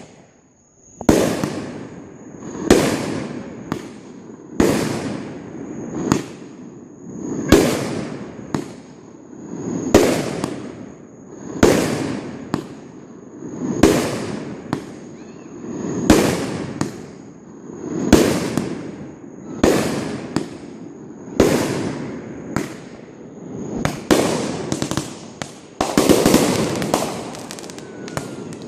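Fireworks going off in a steady series: a sharp bang about every two seconds, each one trailing away, with the bangs coming closer together near the end.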